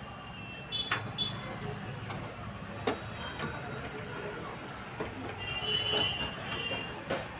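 Scattered sharp clicks and taps of a hard disk and screws being fitted into a metal PC cabinet, about half a dozen over several seconds, over a steady low background rumble.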